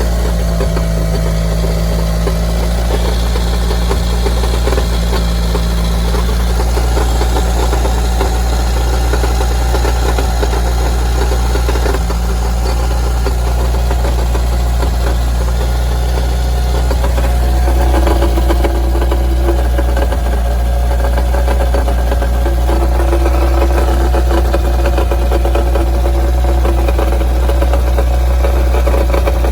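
Mitsubishi Lancer Evolution 4G63 turbo inline-four running at idle with a steady, heavy knocking rattle from the bottom of the engine. The rattle comes from a loose flywheel bolt letting the flywheel wobble.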